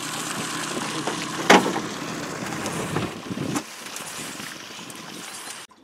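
Small boat under way on open water: a steady rush of wind and water noise, with one sharp knock about one and a half seconds in. The sound stops abruptly near the end.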